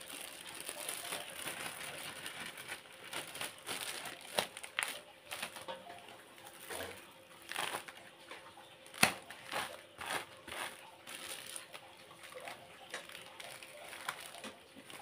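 Thin clear plastic bags rustling and crinkling as they are handled, opened and filled, with scattered small clicks and one sharp click about nine seconds in.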